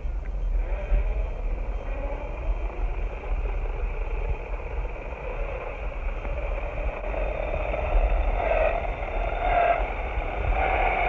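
Ekewill GTX 4WD electric off-road skateboard under way on asphalt: a low rumble from the big tyres rolling, and a whine from its planetary-geared motor drive. The whine climbs in pitch as the board speeds up in the first few seconds and swells several times near the end as the throttle is applied.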